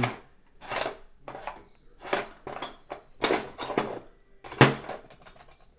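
Small metal hand tools clinking and rattling against each other in irregular bursts, about half a dozen times, one with a short high metallic ring: someone rummaging through tools looking for a small Allen wrench.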